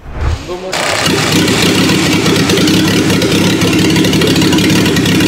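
A petrol engine converted to run on diesel fuel, with raised compression and diesel injection equipment, running steadily and loudly after cutting in under a second in, firing by compression ignition.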